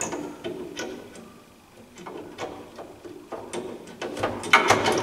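Light plastic clicks and knocks as a replacement filter is fitted onto its hinge inside a VESDA-E VEP aspirating smoke detector, with the aspirator fan stopped while the filter is out. The clicks thin out in the middle and come more often in the second half.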